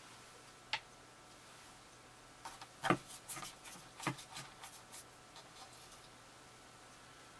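Faint handling sounds of clay sculpting: one sharp click about a second in, then a cluster of taps, clicks and rubbing from hands and a steel modeling tool working oil-based modeling clay, the loudest knocks about three and four seconds in.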